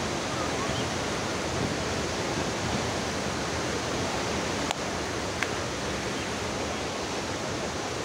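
Steady roar of Athirappilly Falls, a large river waterfall pouring over a cliff, with two short clicks a little after halfway.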